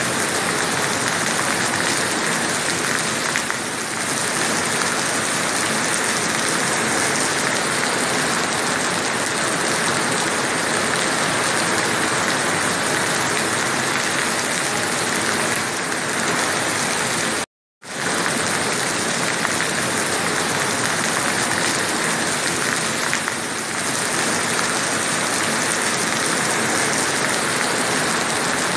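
Steady rain pouring down over the sea and beach, an even dense hiss that cuts out for a moment about two-thirds of the way through.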